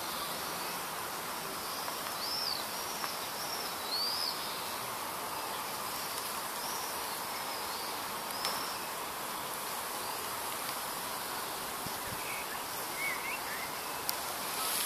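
Birds calling in short, high chirps that rise and fall in pitch, repeated irregularly over a steady background hiss.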